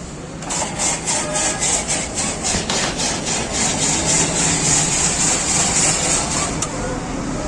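Ice-shaving machine shaving a block of ice into flakes: a rapid, rhythmic rasping scrape, several strokes a second, starting about half a second in and stopping near the end.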